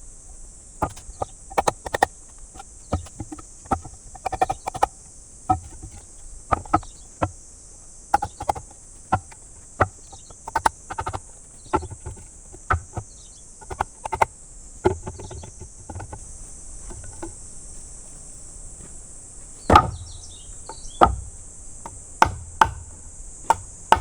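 Rapid series of sharp wooden knocks and clunks, about two a second, as pieces of firewood strike one another; they thin out about two-thirds of the way through, followed by a few heavier thuds near the end. A steady high insect drone from crickets runs underneath.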